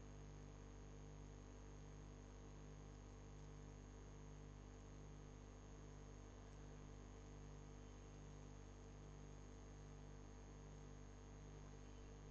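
Near silence: a faint, steady electrical hum with light hiss, recording-chain noise.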